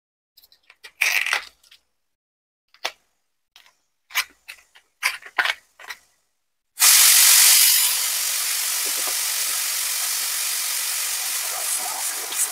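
A few short scattered clicks, then a pressure cooker whistle going off: steam hissing out loudly for almost six seconds, loudest at the start and then settling to a steady hiss. It is one of the two whistles the cooking needs.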